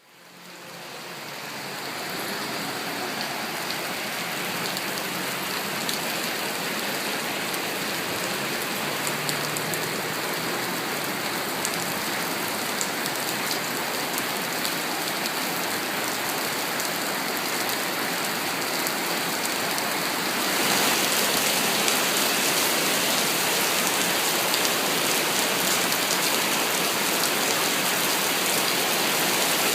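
Heavy rain falling steadily, a dense hiss with the patter of drops, fading in over the first couple of seconds and growing louder about two-thirds of the way through.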